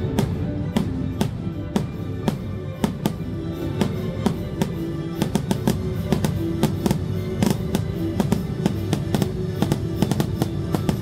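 Holiday show music with drums, overlaid by a rapid, irregular string of sharp firework bangs that grows denser after a few seconds.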